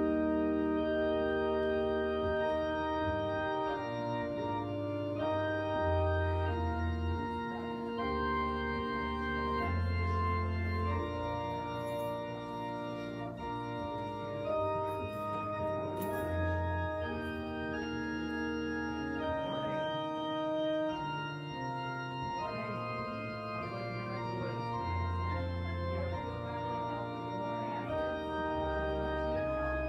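Church organ playing the closing postlude: held chords that change every second or two over deep pedal bass notes.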